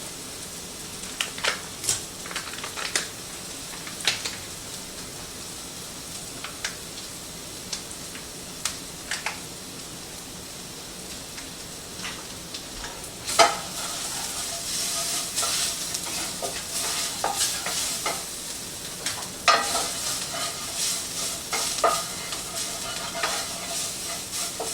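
Onions and bell peppers frying in a pan with garlic and cumin, a steady sizzle under the scattered clicks and scrapes of a utensil stirring them. About halfway through the sizzle grows louder and the stirring clicks come more often.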